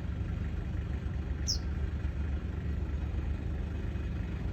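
Engine of a road construction machine running steadily with a low, even sound. A single short, falling bird chirp about a second and a half in.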